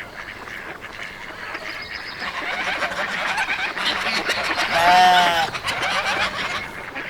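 Farmyard fowl calling, with many overlapping short calls from a flock building up. About five seconds in comes one louder, drawn-out call.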